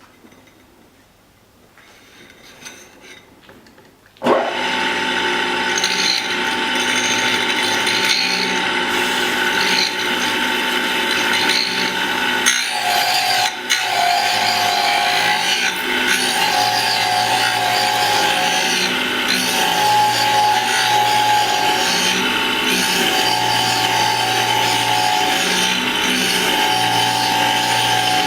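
A few light clicks, then about four seconds in a cutter-sharpening grinder starts running abruptly with a steady whine. It keeps running, and a lower hum comes and goes every few seconds as the work goes on.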